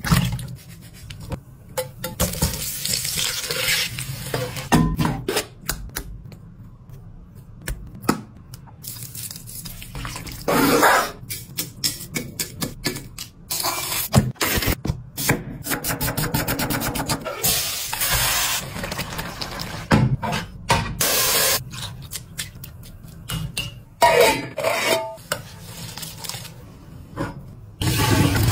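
A run of kitchen food-prep sounds: a knife cutting through potato onto a board, clatter of bowls and utensils, and water poured through a metal strainer, with many sharp knocks and clicks throughout.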